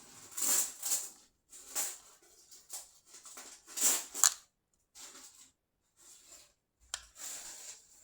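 Stuffed toy being twisted and pressed, giving a string of short, crunchy crackling rustles, irregular and about ten in all, with one sharp click near the end: the mock 'cracking' of a toy's joints.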